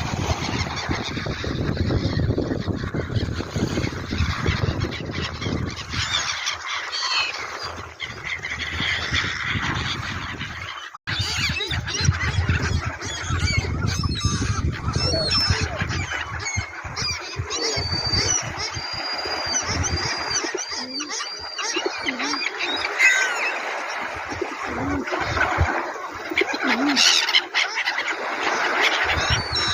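A flock of gulls calling, many harsh overlapping cries, over a low rushing noise, with a sudden brief break about eleven seconds in.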